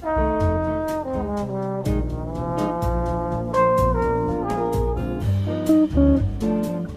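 Background music in an upbeat jazz style: brass melody over a bass line and a steady beat.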